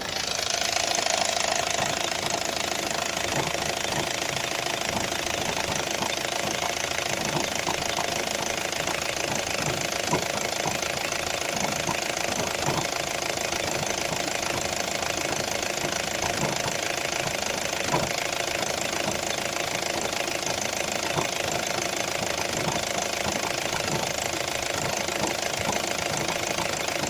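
2004 Opel Zafira engine idling with a knock that comes at uneven intervals rather than a steady beat.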